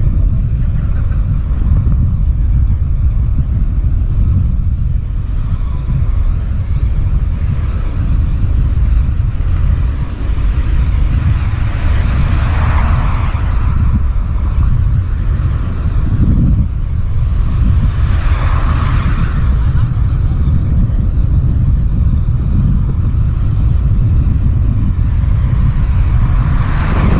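Wind buffeting the microphone while riding a bicycle outdoors: a loud, steady, deep rumble. Swells of rushing noise rise over it about halfway through, again about two-thirds through, and near the end.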